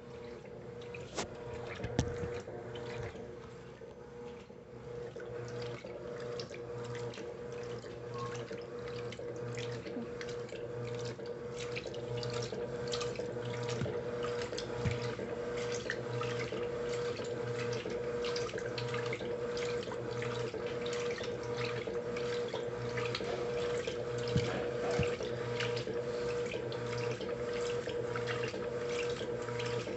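Electrolux Essential Care LES11 top-loading washing machine filling with water at its high level setting: water pouring into the drum over a steady electrical hum, growing louder over the first dozen seconds and then running on evenly.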